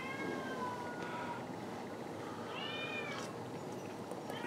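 Domestic cat meowing three times: a long meow that rises and then falls slowly in pitch, a shorter arched meow about two and a half seconds in, and a third starting near the end.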